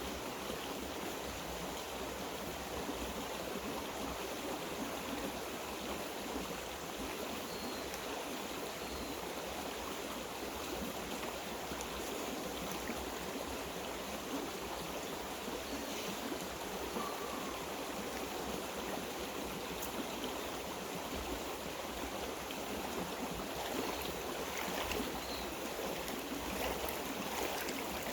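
Mountain stream water running steadily over rocks, with a few faint short chirps above it.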